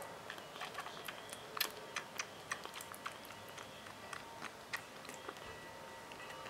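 Young bottle-fed kitten suckling milk from a feeding bottle: irregular wet clicks and smacks from its mouth working the nipple, several a second.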